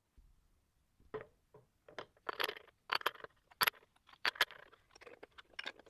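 Small steel machine parts clinking and clicking against each other as they are handled and fitted by hand: an irregular run of about fifteen sharp metallic clicks, the busiest stretch in the middle.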